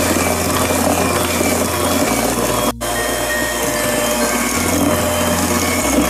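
Electric hand mixer running steadily, its beaters churning thick chocolate cake batter in a stainless steel bowl, with a momentary dropout nearly three seconds in.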